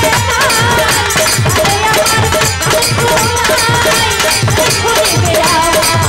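A woman singing a Bengali Baul folk song into a microphone, her melody wavering over a drum beat of low, falling strokes about twice a second, with a repeated instrumental note.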